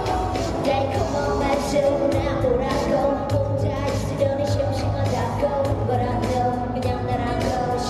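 K-pop girl-group song performed live: female vocals over a backing track with a steady beat and heavy bass, heard through a concert stage's sound system.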